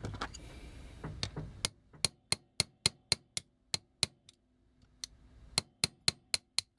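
Sharp light taps of a small metal tool on a toy's rivet, about four a second, in two runs with a pause in the middle, as the rivet is worked loose.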